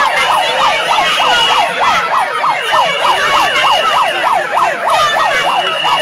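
Electronic siren yelping, its pitch sweeping up and down about four times a second without a break, over the noise of a crowd. A higher steady tone sounds in three long stretches alongside it.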